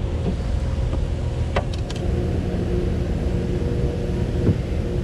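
Steady low engine rumble with a constant hum running under it, and a sharp click about one and a half seconds in.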